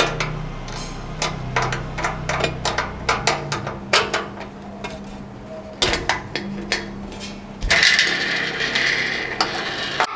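Metal frame parts of an IKEA MACKAPÄR shoe rack being handled and pushed together, giving many irregular clicks and knocks as a fitting that will not seat is worked at. A longer rasping noise comes in about eight seconds in.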